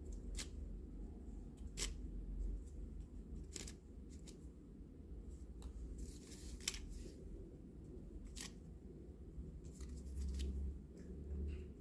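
Sharp clicks and taps of small plastic toy kitchen pieces being handled, one every second or two, over a low steady hum.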